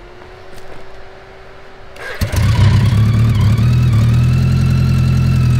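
A faint electric whine for about two seconds, then the BMW K100 1000cc inline-four engine fires and runs at a steady idle, suddenly much louder.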